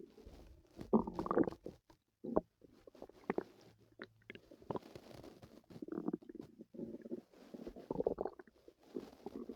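A person's stomach growling and gurgling in a run of irregular bursts, the loudest about a second in and again near the end.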